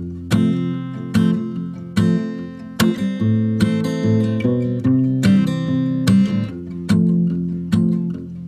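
Acoustic guitar strumming chords in an even rhythm, one strummed chord about every 0.8 seconds: the instrumental part of a song, without singing.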